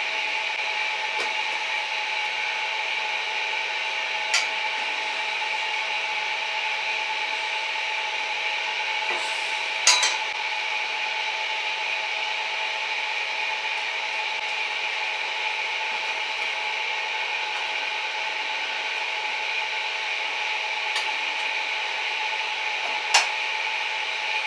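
Steady mechanical hum with several fixed tones over a whirring hiss, typical of a small motor running, with a few sharp clicks or knocks at about 4, 10 and 23 seconds in.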